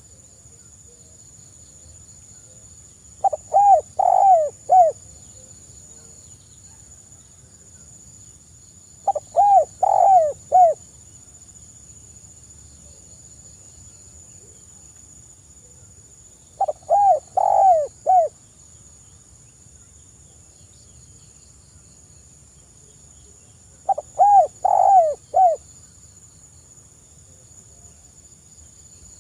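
Spotted dove cooing: four calls about seven seconds apart, each a quick run of three or four soft coo notes.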